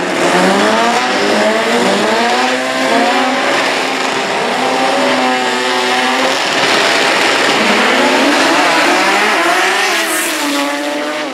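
Drag-race car engines revving on the start line, among them a turbocharged Mitsubishi 4G63 four-cylinder. Their pitch rises and falls, then holds steady for a couple of seconds. About ten seconds in the engines climb sharply with a short hissy burst as the cars launch.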